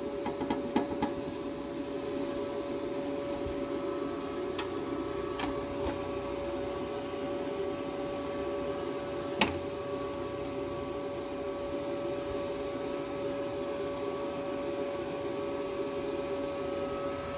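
Welding machine running steadily with a constant hum and whine. There are a few light clicks near the start and one sharp click about halfway through.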